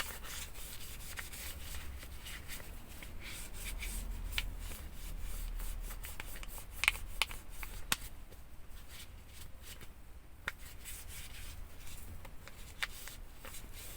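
Wet tissue wiping and rubbing a phone case: a soft, uneven scrubbing with many small clicks and crackles from the tissue and the case being handled.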